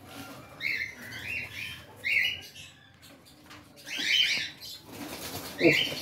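Caged cockatiels calling in short high chirps, about five times, with wings fluttering in the cages.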